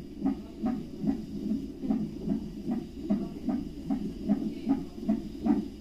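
Fetal heart monitor sounding the unborn baby's heartbeat: a fast, regular whooshing beat, about two and a half beats a second.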